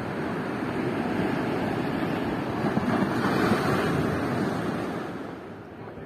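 Ocean surf: a wave builds, is loudest about three seconds in, and dies away near the end.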